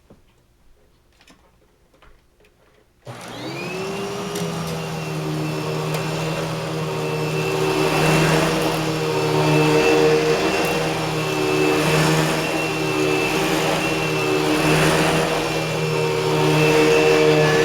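Eureka Boss Smartvac 4870 upright vacuum switched on about three seconds in, its motor whining up in pitch and then running steadily, the loudness swelling and easing every couple of seconds. A few faint taps come before it starts. The owner believes its brushroll clutch is going bad.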